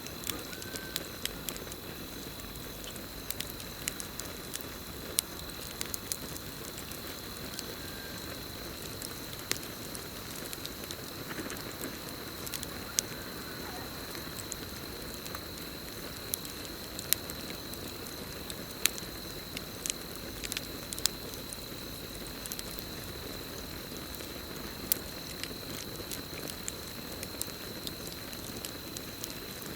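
Campfire burning: irregular sharp crackles and pops over a steady low rush of the flames, with a continuous high cricket trill.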